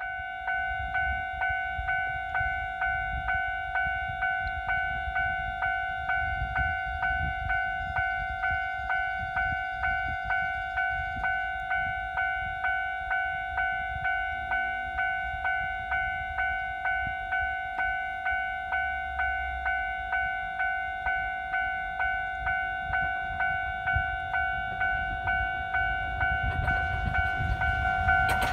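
Level-crossing warning bell ringing in a steady repeating rhythm, about three strikes every two seconds. Near the end the rumble of the approaching steam train grows louder under it.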